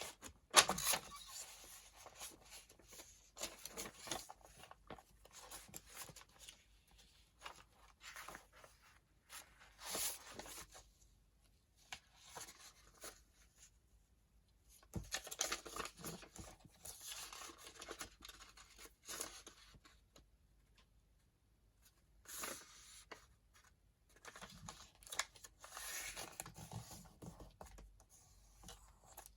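Sheets of tea-stained paper being handled and shuffled: intermittent rustling and sliding of paper with a few sharp taps, in bursts separated by quiet pauses.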